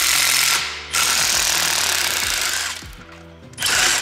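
Cordless impact wrench hammering on exhaust manifold bolts in three bursts: a short one at the start, a long one from about a second in to nearly three seconds, and a short one near the end.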